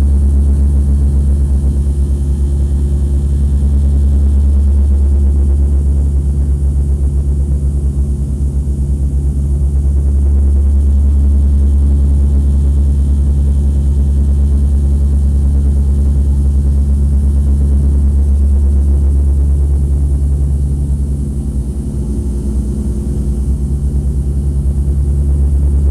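Aircraft engines heard inside the passenger cabin in flight: a loud, steady low drone with several steady engine tones above it, easing slightly about 21 seconds in.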